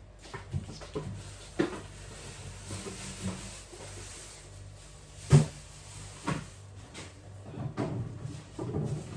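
Scattered knocks and clatters of food containers and other items being handled and set down while a fridge is emptied, with one sharp loud knock about five seconds in.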